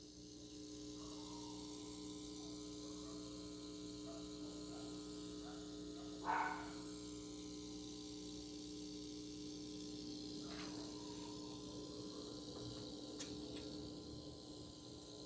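Steady hum-like buzz from a Rega P1 turntable setup, one pitch held without change. A brief louder noise cuts in about six seconds in, and a fainter one about ten and a half seconds in.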